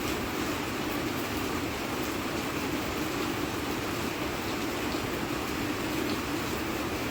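Steady rain falling, an even continuous hiss with a low rumble underneath and occasional faint drop ticks.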